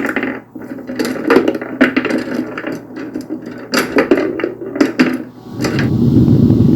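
Plastic LEGO bricks clattering and knocking against one another in irregular bursts as the model is shaken. At about five and a half seconds a steady low rumble sets in and grows louder.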